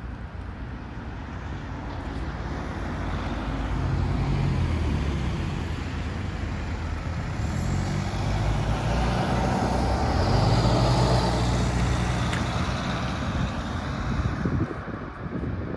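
Cars driving past close by, their engines and tyres on the road growing louder to a peak about ten seconds in, then fading near the end.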